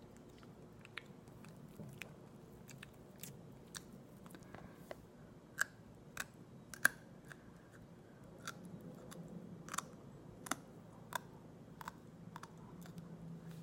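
Close-miked chewing of aloe vera: sticky, wet mouth clicks and smacks at irregular intervals, the loudest a few in the middle.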